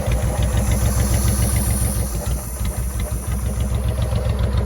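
Honda VTX1800C's 1800 cc V-twin idling steadily, an even low pulse, through a modified intake and exhaust.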